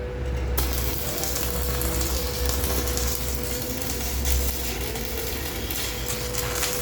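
Electric arc welding from a 200-amp welding machine: a steady crackling, sizzling hiss that starts about half a second in, over a steady hum.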